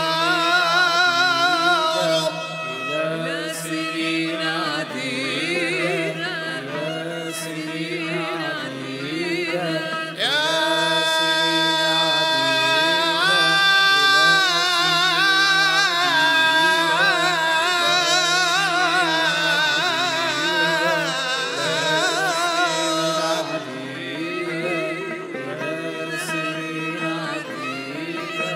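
Male voice chanting a melismatic Arabic (Levantine) melody, its line wavering and ornamented, with long held notes in the middle and a softer stretch near the end.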